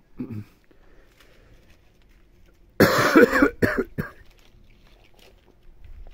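A man coughing: one loud cough about three seconds in, followed quickly by two or three shorter ones.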